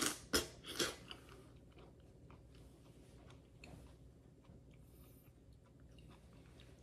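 A person biting into and chewing the soft, ripe flesh of a Lisa Pride atemoya: a couple of loud bites in the first second, then quieter chewing with small clicks.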